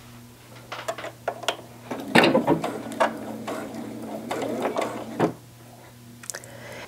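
Electric sewing machine stitching through two layers of cotton fabric: a few separate clicks first, then a run of rapid stitching for about three seconds that stops suddenly.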